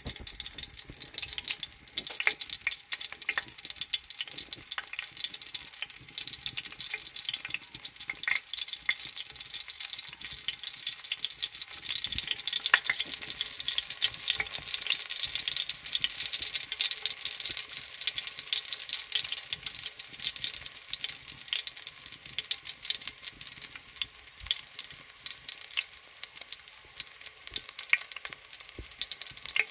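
Onion frying in hot oil in a cooking pot, a steady sizzle that grows louder about twelve seconds in, with the light clicks of a spoon stirring against the pot. The oil is heating as the onion seasons it.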